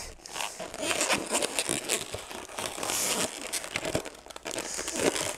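Latex twisting balloon being handled and twisted, rubber rubbing and crinkling in a dense run of small irregular crackles.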